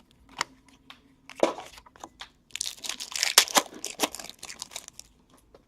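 Trading-card pack wrapper being torn open and crinkled, with light clicks of cards being handled; the crinkling is densest in the middle.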